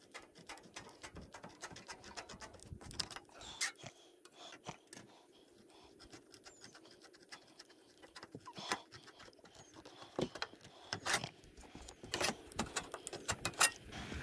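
Hand-held aviation snips cutting metal valley flashing: a run of short sharp clicks and crunches as the blades bite through the sheet, sparse at first and coming faster and louder over the last few seconds.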